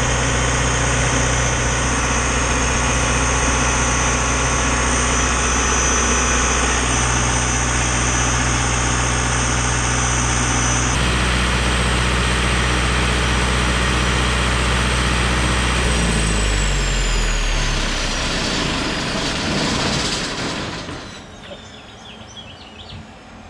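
John Deere 4045 turbocharged four-cylinder diesel generator running steadily, then shut down about two-thirds of the way in: the engine winds down and stops, and the turbocharger's high whine falls in pitch as it spins down.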